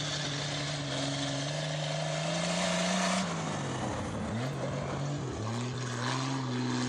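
Dirt-track race car engine at high revs, its pitch climbing, then falling away sharply about three seconds in as the driver lifts off, and coming back steady on the throttle a couple of seconds later.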